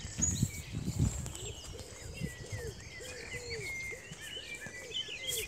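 Birds calling: high chirps and twittering, with a lower arched call repeating about twice a second. A few soft low thuds in the first second, like footsteps on the path.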